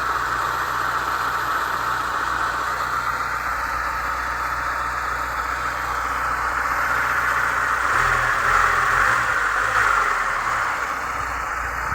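Chevrolet Niva's four-cylinder engine idling steadily once warmed up to about 65 degrees, running without knocking. The low engine note shifts and grows slightly louder about eight seconds in.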